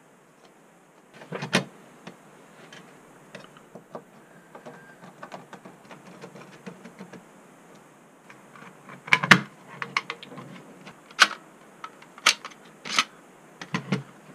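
Hands handling and fitting together the sheet-metal parts of a 3.5-inch floppy drive: scattered light clicks and clacks, with one louder knock about a second and a half in and a run of sharper clacks in the last five seconds.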